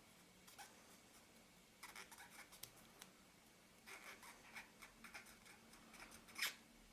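Faint dry rubbing and scratching of a cotton bud scrubbing small metal parts of a Synchro Compur camera shutter to clear old sticky oil. It comes in short spells, about half a second in, around two seconds in and from about four to five seconds in, with a slightly louder scratch near the end.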